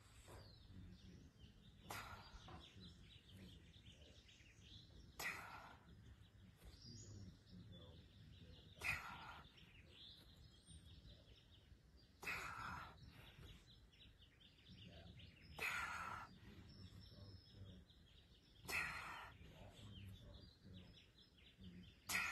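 A person exhaling sharply in short breaths, seven times at about one every three and a half seconds, in rhythm with dumbbell curl-to-press reps in a V-sit, over faint outdoor background noise.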